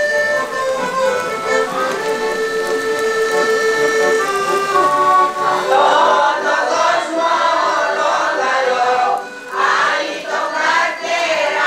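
Accordion playing a melody in long held notes, then about five seconds in a choir of mostly women's voices comes in singing along with it.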